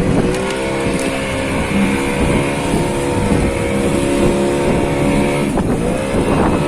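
Boat engine running at a steady speed, its pitch shifting near the end.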